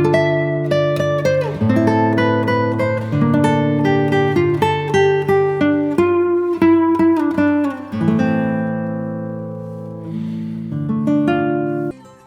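Background music: acoustic guitar strumming and picking chords, with clear note changes every second or two; it starts abruptly and cuts off sharply near the end.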